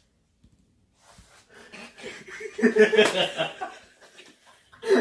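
Two teenage boys laughing. It starts about a second and a half in, is loudest around the middle, and dies down near the end.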